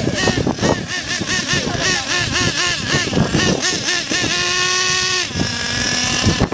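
Nitro RC buggy's small two-stroke glow engine revving up and down in quick rising-and-falling blips, then held at a steady high pitch for about a second before dropping to a lower steady tone near the end.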